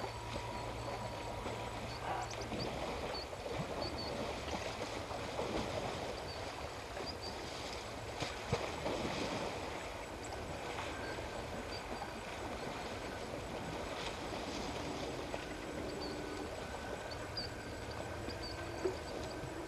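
Outdoor bush ambience: a steady, even hiss with faint short high chirps scattered through and a few soft knocks.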